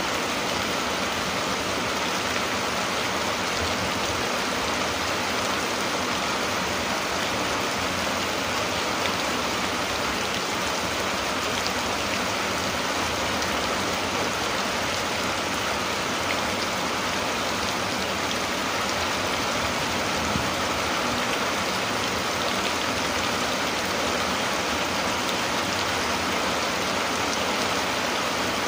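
Steady rain falling: an even hiss with a dense patter of fine drops, unchanging throughout.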